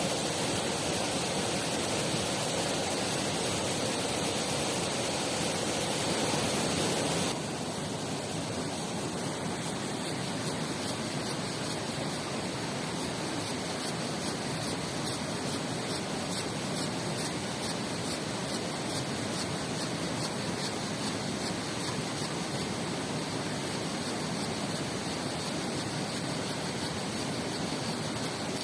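Steady rush of fast-flowing river water. About seven seconds in it changes abruptly to a slightly quieter, thinner rush.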